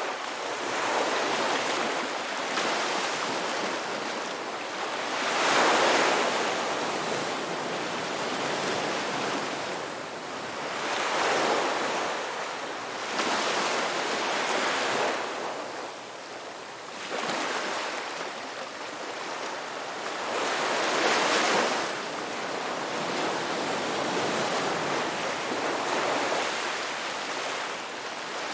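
Sea waves breaking and washing on a shore: a continuous rush of surf that swells and ebbs every few seconds, with the two strongest breakers about six and twenty-one seconds in.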